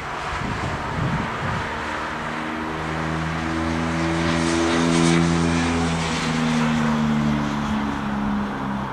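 A train passing at the trackside: a steady running noise with humming motor tones that come in a few seconds in and step up and down in pitch, loudest about midway.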